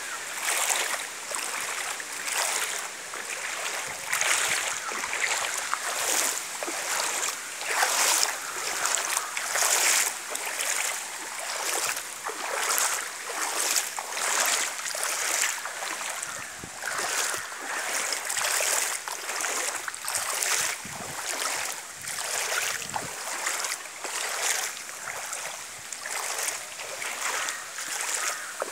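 Fast-flowing floodwater rushing and splashing, swelling and easing about once a second.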